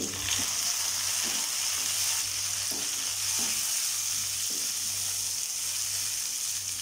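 Chopped tomato, shallots and green chillies sizzling in hot oil in a non-stick kadai as they are sautéed, with a steady hiss and a few soft scrapes of a wooden spatula stirring through them.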